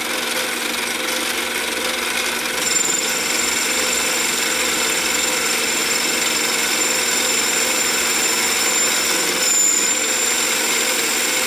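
Harbor Freight 7x10 mini lathe running in high gear at about mid speed with a steady motor and gear whine, while a carbide insert takes a light finishing cut of about five thousandths on an aluminum bar. A thin high-pitched tone joins about three seconds in and holds.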